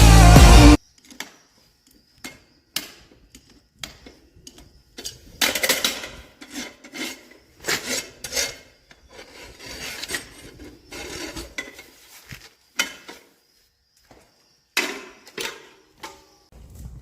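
Rock music cuts off about a second in. It is followed by irregular scraping and rasping strokes with short clicks and pauses between them: farrier's tools working on a horse's hoof.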